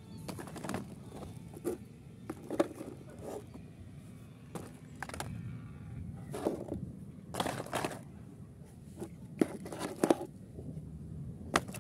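Mud-caked plastic toy cars being picked up from a plastic basket and set down on a wet board: irregular clicks, knocks and short scrapes of plastic on plastic and on the board.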